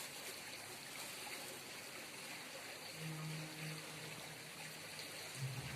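River water flowing steadily, with a faint low hum about three seconds in.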